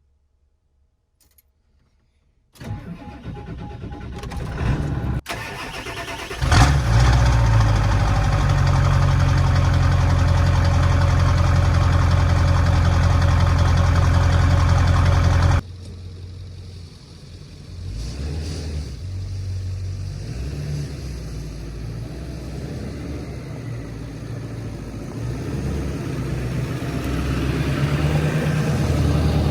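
An engine cranking, then catching about six and a half seconds in and running loud and steady at a low pitch. The sound changes abruptly partway through to a quieter, uneven engine sound that slowly grows louder.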